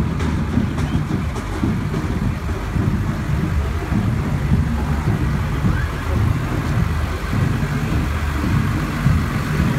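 Diesel engine of a Case IH 125 tractor running at low speed as it drives past close by, a steady low rumble.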